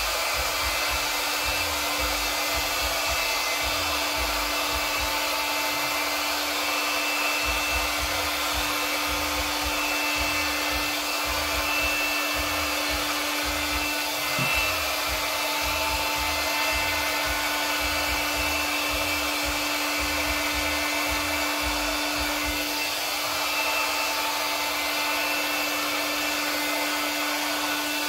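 A handheld hot-air blower, of the kind used to work and move epoxy resin, running steadily with a constant rushing sound and a steady hum. There is a brief tick about halfway through.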